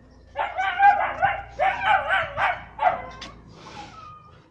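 Small dog barking in a fast run of high-pitched yapping barks, the pitch wavering up and down, in three quick bursts over about two and a half seconds. It trails off into a few faint whines near the end.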